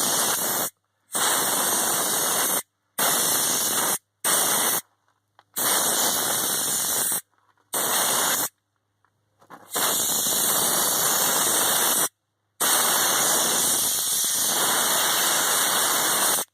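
Air-powered undercoating gun spraying rust-inhibiting oil in a run of about eight hissing bursts, from half a second to a few seconds long, each starting and stopping abruptly as the trigger is pulled and released. The gun sprays without its fan-out nozzle.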